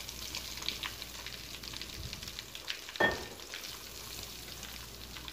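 Chicken pieces sizzling and crackling as they are dropped by hand into hot frying oil in a metal pan. A single sharp knock about three seconds in.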